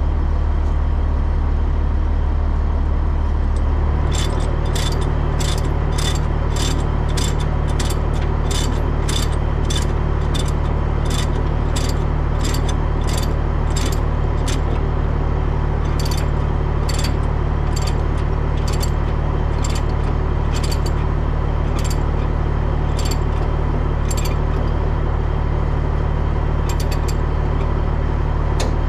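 Diesel truck engine idling steadily under sharp metallic clicks. The clicks start about four seconds in at about two a second, then come slower and unevenly, like a ratchet chain binder being cranked to tighten heavy tie-down chains.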